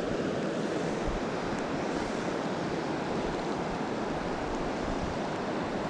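Steady rush of a glacier-fed river's flowing water, an even hiss with no breaks.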